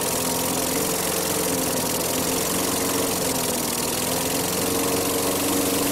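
Small gasoline lawn mower engine fitted with a GEET fuel processor, idling steadily with its exhaust closed off in closed loop.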